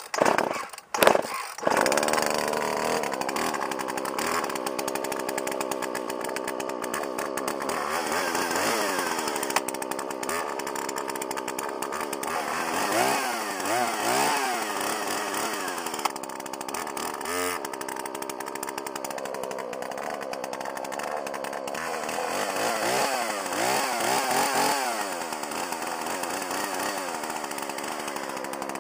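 Two-stroke chainsaw pull-started with the choke just turned off on a cold start: a couple of pulls, then the engine catches about a second and a half in and keeps running, revved up and back down several times.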